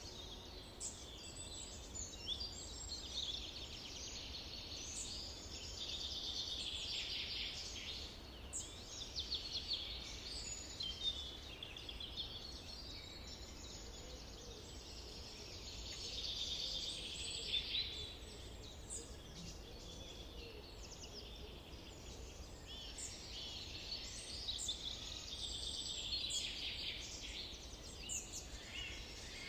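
Several wild birds singing and calling together, a dense run of overlapping chirps, trills and short whistles, over a steady low rumble.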